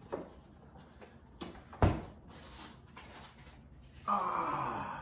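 Refrigerator door opened and shut, with a sharp loud thump about two seconds in and smaller clicks and knocks around it.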